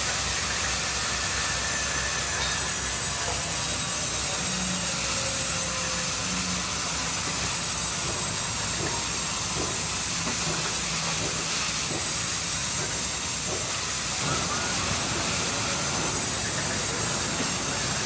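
Sawmill band saws running and cutting boards: a steady, dense machine and cutting noise at a constant level, with a few light knocks of timber being handled near the middle.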